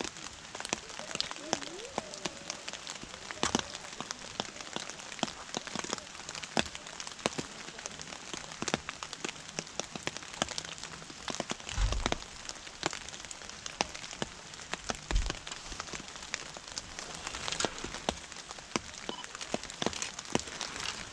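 Steady rain falling, with many individual drops ticking sharply close to the microphone over a constant hiss of rain. Two dull low thumps come about twelve and fifteen seconds in.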